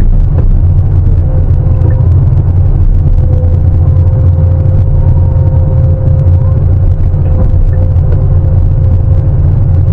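Sany 750 heavy excavator's diesel engine running steadily at working revs, a deep, loud rumble with a faint steady whine above it.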